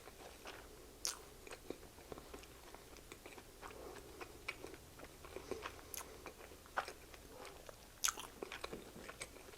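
A person chewing a blackened chicken sandwich close to the microphone: faint, irregular wet mouth clicks and smacks, with a few sharper ones.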